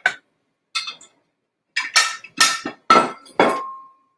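Ceramic plates clinking together as they are handled: a quick series of about five clinks, the last one ringing briefly.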